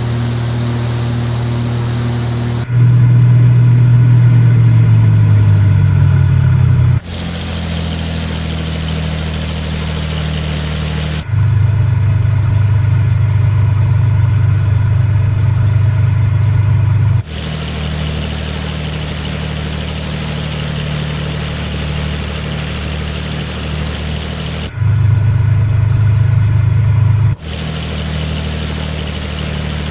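Cessna Stationair's single piston engine and propeller running steadily, with the sound jumping abruptly in loudness and tone several times.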